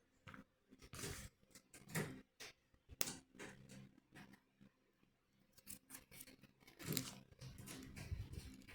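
Plastic LEGO pieces being handled and pressed together: faint, scattered clicks and rustles, a few sharper clicks about a second apart early on and another near the seven-second mark.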